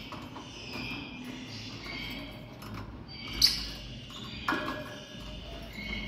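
Lovebird chirping over and over in short, high calls. A sharp clack about three and a half seconds in, the loudest sound, and a smaller one about a second later come from the bird moving about on the wire cage.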